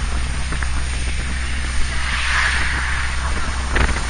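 Jeep driving along a road: a steady low engine rumble under wind noise on the microphone, with a rush of hiss swelling and fading about two seconds in.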